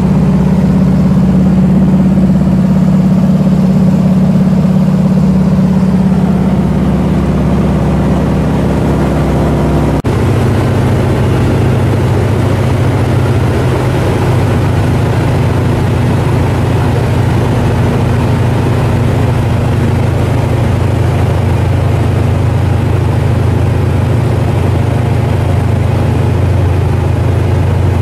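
Floatplane's piston engine and propeller heard from inside the cabin: a loud, steady drone. About ten seconds in it switches abruptly to a lower, deeper steady drone.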